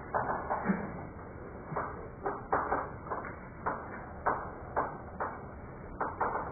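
Chalk writing on a blackboard: a string of short, uneven taps and scrapes as each stroke is made.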